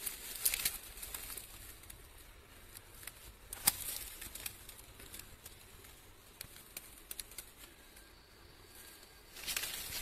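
Scattered rustles and small clicks in dry leaf litter and undergrowth, with one sharp snap about three and a half seconds in.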